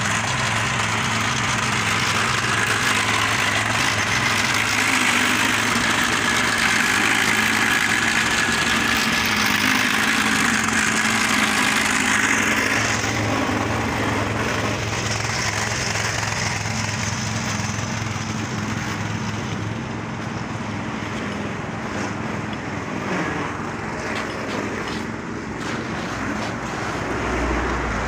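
Home-built road-marking removal machine with a small petrol engine running steadily while it grinds white road-marking paint off the road surface. About halfway through, the grinding noise grows quieter, and a lower engine hum carries on under it.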